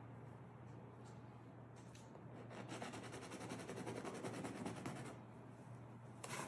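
A paintbrush scrubbing paint across stretched canvas: a scratchy rubbing for a couple of seconds in the middle, over a low steady hum, with a short tap near the end.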